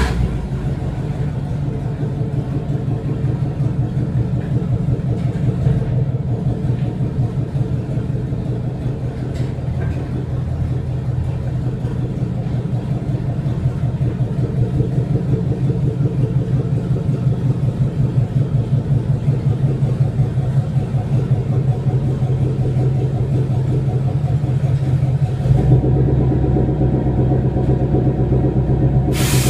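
Engine of a 1955 Chevy panel truck running at low speed on open headers, with a rapid, even exhaust pulse, as the truck is backed into a garage. About 26 seconds in, the sound gets fuller and louder as the truck comes inside.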